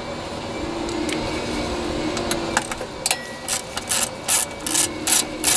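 Socket ratchet clicking as it loosens the small bolt that holds the automatic choke on a Briggs & Stratton carburetor. The clicks start about halfway in and come in short, sharp runs about three times a second.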